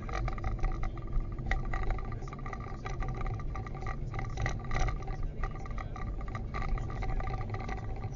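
Irregular light knocking and rattling clicks, the 'koto-koto' abnormal noise of a broken dashcam, heard over the low steady rumble of the car driving.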